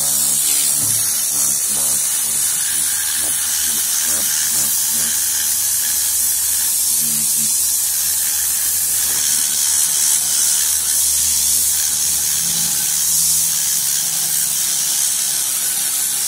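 Tornador cleaning gun blasting compressed air at about 10 bar against a car's fabric headliner: a steady, loud hiss.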